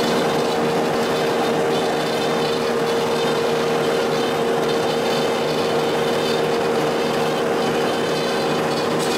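DoAll C-170 horizontal bandsaw, with its 5 HP three-phase motor, running idle: a steady machine hum with a constant whine and no change in pitch.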